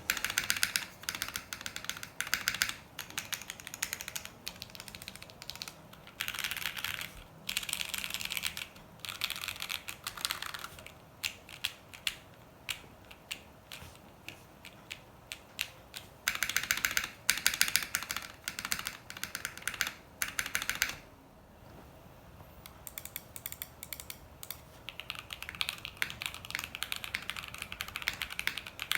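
Typing runs on a 60% gasket-mounted mechanical keyboard with stock Jwick Black linear switches and PBT keycaps, first on a 1.5 mm acrylic plate. About 21 seconds in there is a short pause, and the typing resumes on an FR4 plate.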